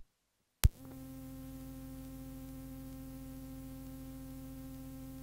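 Panasonic RQ-V153 radio/cassette player: two clicks as a switch on top is worked, then a faint steady electrical hum with a buzzy tone from the radio's output, starting about a second in.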